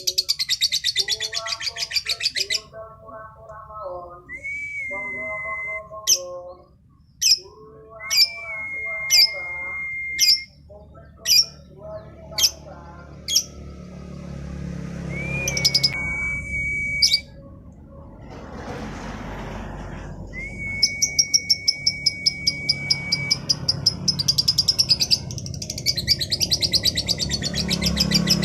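Female lovebird calling: a fast, buzzy chattering song at the start and again near the end. In between come several long, steady whistles and a run of sharp chip notes about a second apart.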